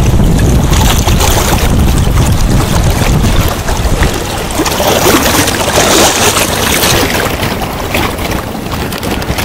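Wind buffeting the microphone over the rushing of a shallow, riffled river; the low wind rumble eases about three and a half seconds in, leaving mostly the hiss of the moving water.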